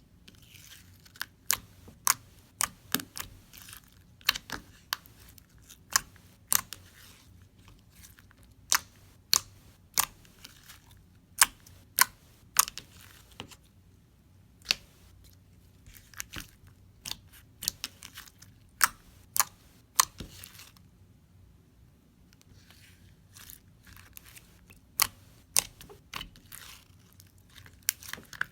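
Stretchy gold metallic slime being handled: a long run of sharp clicks and pops, about one or two a second, with softer squishing and stretching between them and a few brief quiet pauses.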